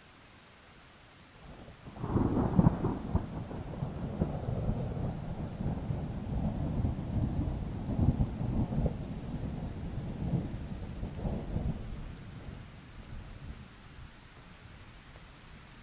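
Rolling thunder over faint steady rain. The thunder breaks sharply about two seconds in, rumbles deep with several swells for about ten seconds, and fades out, leaving the hiss of rain.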